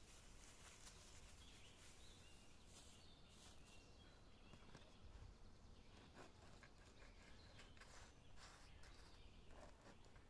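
Very faint handling sounds: plastic film rustling as it is pulled off a baguette, then a knife sawing through the crusty bread in short crackling strokes from about halfway through. A few faint bird chirps sit in the background.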